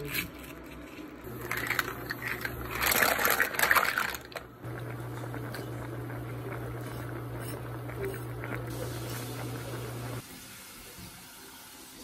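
A pot of mussels boiling hard, with a steady bubbling over a constant low hum. A louder, rougher stretch comes in the first few seconds, and the sound drops away shortly before the end.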